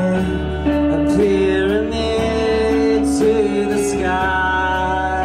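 Live band music: guitars playing held chords under a voice singing drawn-out notes, with regular cymbal strokes.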